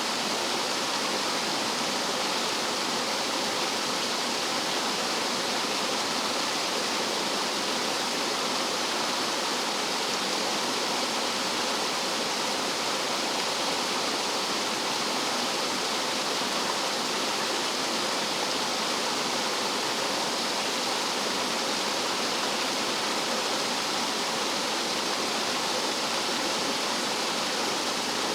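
Rough mountain-valley stream water cascading like a small waterfall: a steady, unbroken rush with no pauses or separate splashes.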